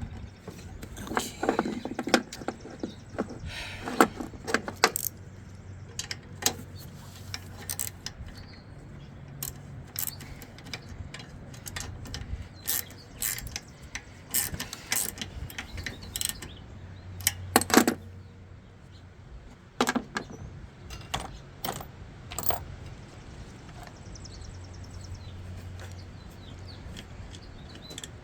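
Hand tools and metal parts clinking and knocking at irregular intervals during repair work on a lawnmower, with several louder clanks in clusters.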